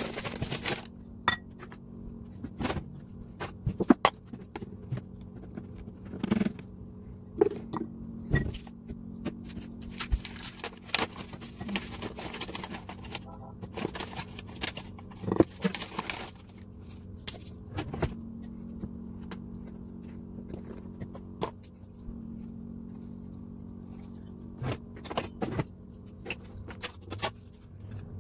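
Plastic measuring cups and a scoop clicking and scraping against a glass mixing bowl as dry ingredients are measured in: scattered sharp knocks throughout, over a steady low hum.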